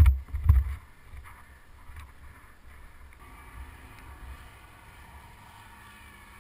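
Dirt bike engine running low and muffled, with a few loud knocks in the first half second.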